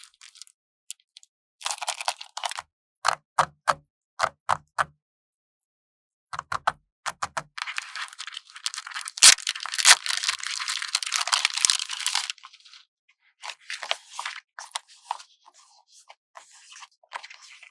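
Stickers being peeled off their backing sheet and handled up close. A few sharp taps and clicks come first, then a long crackling peel of several seconds, then shorter papery rustles.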